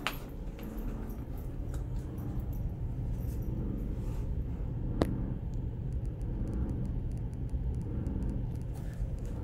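Steady low outdoor rumble with one sharp click about five seconds in.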